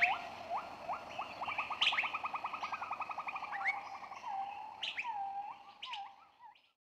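Birds calling: repeated short rising whistles, a fast trill of about a dozen notes a second through the middle, and sharp high chirps. It fades out shortly before the end.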